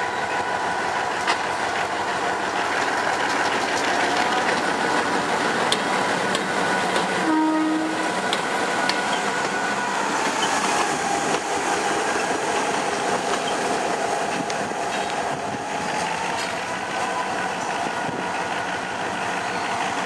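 GM G22 diesel-electric locomotive, with an EMD 645 two-stroke engine, running at low speed while shunting. It passes close by with its wheels clacking over the switches. A short tone sounds about seven seconds in.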